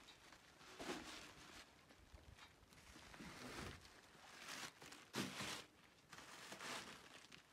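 Faint rustling of thin plastic shopping bags being handled, in several short bursts.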